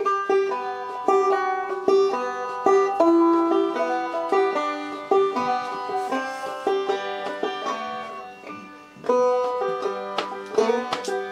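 Banjo played clawhammer style: a simple exercise tune built on a scale, slides and hammer-ons, a quick run of plucked notes that thins out briefly and starts again about nine seconds in.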